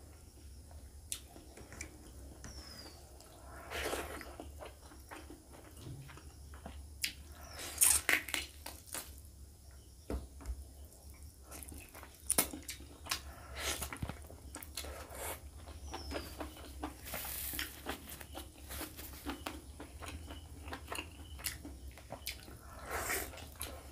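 Close-up eating sounds of a person eating rice and chicken curry by hand: wet, irregular chewing and the squish of fingers mixing rice, with a few louder bites, one about halfway through.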